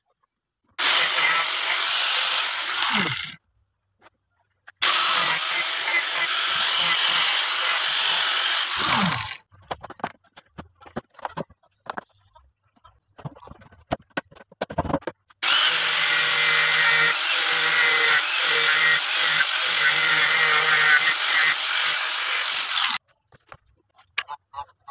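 A handheld electric power tool running in three bursts, the last and longest about seven seconds. After each of the first two the motor's pitch falls as it winds down, and between the runs there are scattered light knocks and clicks.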